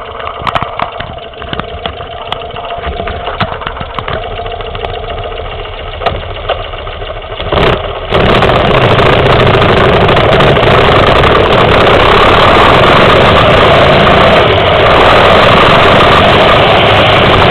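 Moto Guzzi 850 Le Mans Mk2's air-cooled V-twin idling with a steady beat. About eight seconds in the sound jumps to a much louder, steady rush of engine and wind as the bike pulls away and rides off.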